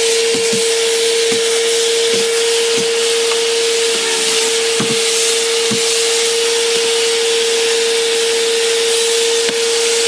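Bissell CleanView Helix bagless upright vacuum cleaner running steadily on carpet: a constant motor whine over rushing air, with a few light knocks now and then.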